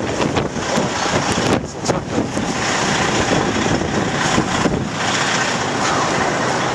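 Blizzard wind blowing across the camera microphone, a loud, steady rushing noise with a few sharp knocks in the first couple of seconds.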